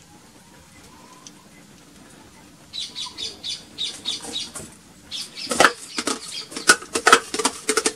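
A hand slapping the bottom of an upturned plastic cup to shake out the last of the mayonnaise cream. After a quiet start, light quick taps begin about three seconds in, about four a second, and turn into louder, sharper slaps for the last three seconds.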